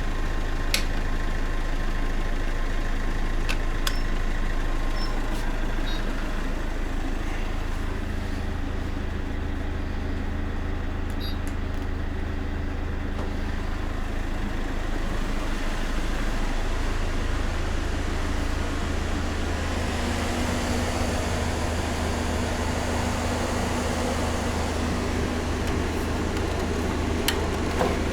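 Steady machine running noise: a continuous low hum with even noise over it, a few light clicks, and a further steady tone joining about twenty seconds in.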